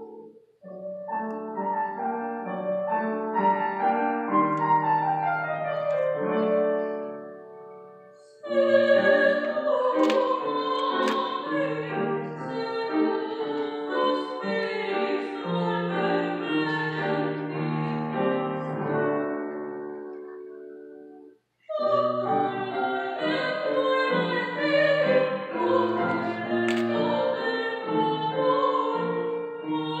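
A woman singing in operatic style with grand piano accompaniment. Twice the music dies away and breaks off, then starts again abruptly, about eight and twenty-two seconds in.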